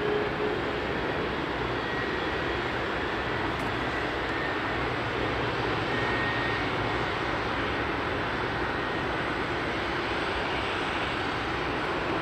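Airbus A350-900 airliner on final approach, gear down, its Rolls-Royce Trent XWB engines giving a steady jet noise.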